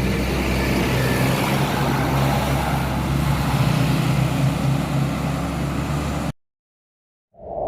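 A bus engine running close by under a broad rushing noise, its low hum loudest about three and a half seconds in. It cuts off abruptly after about six seconds. After a moment of silence a ping-like electronic tone starts near the end.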